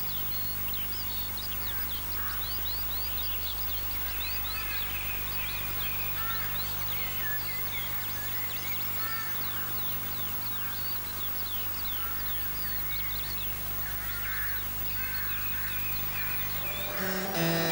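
Birds calling: a dense run of short, quick chirps and calls, over a steady low hum. Harpsichord music comes in near the end.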